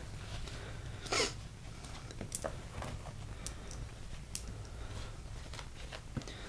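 Faint scattered clicks and handling noises from work on a wheel, with a short hiss-like rush about a second in.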